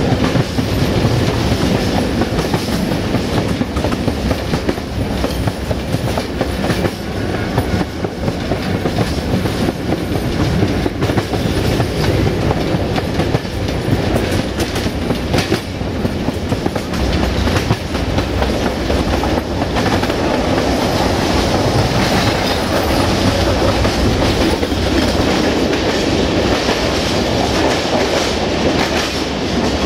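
Freight train hauled by an LDH1250 diesel-hydraulic locomotive, heard riding aboard: a steady rumble of wheels on the rails with clickety-clack over the rail joints.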